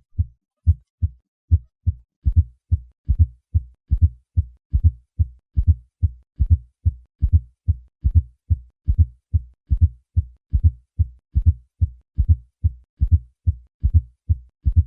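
Heart sounds with a fourth heart sound (S4 gallop): a regular run of short, low-pitched thuds grouped in threes, each late-diastolic S4 falling just before the first heart sound, then the second heart sound. The S4 is the sign of a stiff, non-compliant left ventricle.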